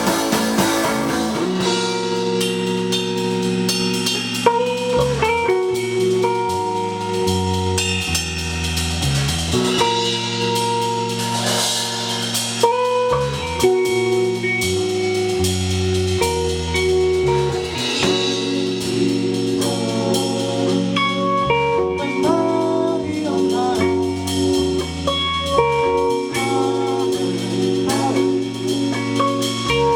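A band playing with a drum kit keeping a steady beat under guitar.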